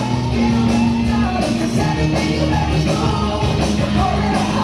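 Loud music with sustained bass notes and a steady beat.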